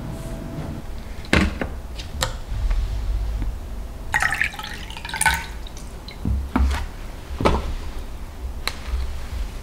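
Cold tea poured from a Muji acrylic water pitcher into a glass for about a second, around the middle. Before and after come several light knocks and clicks of the glass and pitcher being set down and handled on a table.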